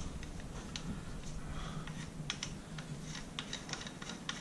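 Irregular light clicks and taps of the Panzer AR12 Pro shotgun's gas piston and barrel parts being handled and fitted together by hand, several a second.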